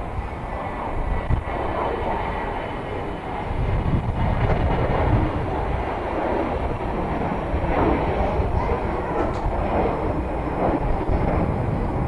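Wind buffeting the microphone over a steady jet-engine rumble with a faint high whine.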